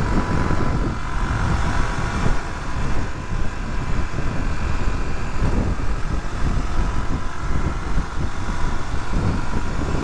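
Suzuki DR250S single-cylinder four-stroke motorcycle being ridden on the road, its engine running steadily under a dense, unbroken rush of riding noise.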